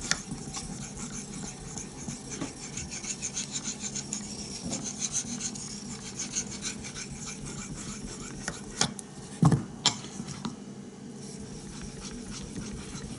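Steel blade of an A2 Bravo 1 knife stroked back and forth on a wet Chosera 3000 grit finishing waterstone: a steady rasping scrape of steel on stone as the edge is finish-honed. A few sharp clicks come close together about two-thirds of the way through.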